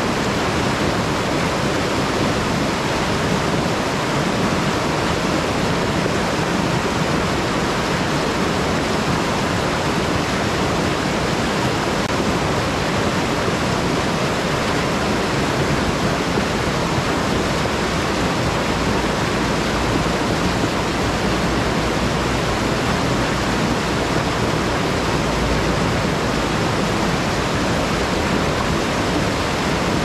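A river rushing, with a steady, even noise of flowing water and a little extra low rumble from a little past halfway until shortly before the end.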